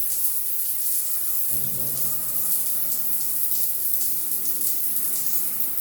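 Shower head running, a steady hiss of spraying water.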